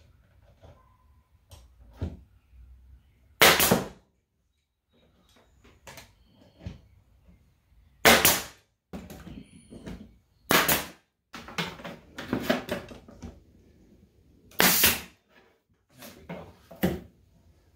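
Pneumatic 1/4-inch crown stapler driving staples into a particle board drawer bottom: four loud sharp shots several seconds apart, with quieter knocks and rattles of handling between them.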